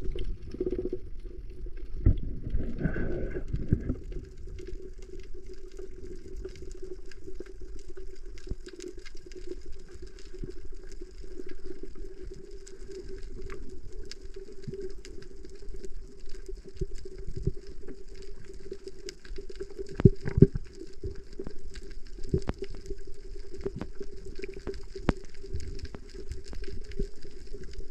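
Underwater ambience: a steady muffled hum with constant small clicks and crackles. A louder gurgling rush comes about two seconds in, and a few louder knocks about twenty seconds in.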